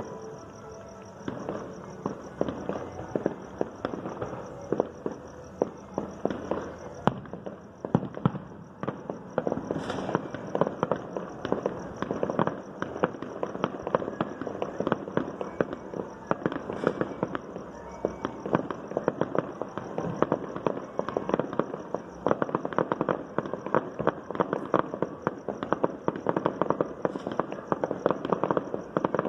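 Fireworks and firecrackers going off in many places at once: a dense, rapid crackle of pops with louder single bangs among them.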